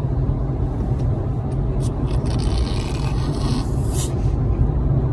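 Car cabin noise while driving at highway speed: a steady low road and engine rumble with tyre noise. A short hiss comes about four seconds in.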